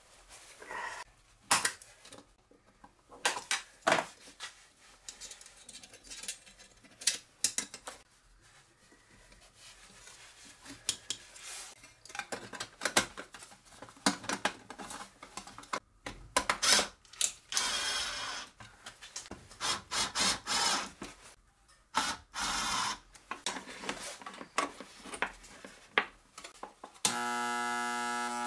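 Scattered clicks, taps and metal clatter of a sheet-steel power-supply case and wiring being handled and closed up with pliers. Near the end a steady electrical buzz starts as the homemade spot welder's transformer is switched on.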